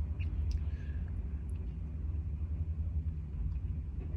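Steady low rumble of a car engine idling, heard from inside the cabin, with a few faint short ticks.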